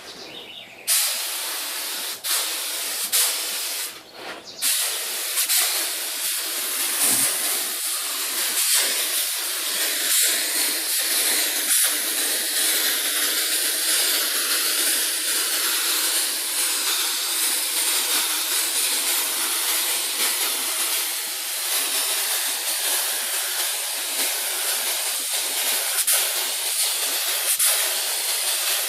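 Compressed-air paint spray gun spraying with a steady hiss, triggered about a second in, released briefly around four seconds in, then held open continuously.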